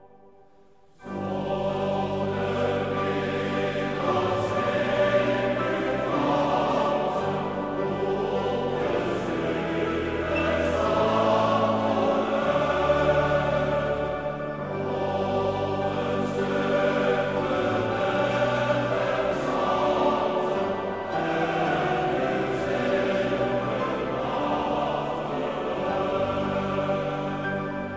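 A male voice choir singing a slow piece in held chords. It comes in about a second in, after a brief near-silent gap.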